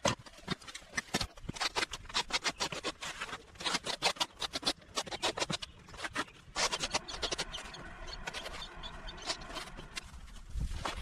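Rapid, irregular scraping and knocking, many short sharp strokes in quick succession, with a pitched, drawn-out sound joining in from about six and a half seconds to ten seconds.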